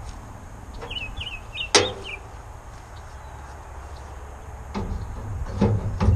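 Sheet-metal grill of a 1959 Allis-Chalmers D17 clanking and knocking against the tractor's front as it is worked into place: one sharp metallic clank just under two seconds in and a few duller knocks near the end. A steady wind rumble on the microphone runs under it.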